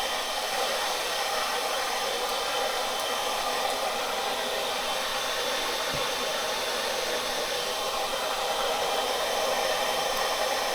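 Air blower feeding a DIY forge, running steadily with an even rush of air.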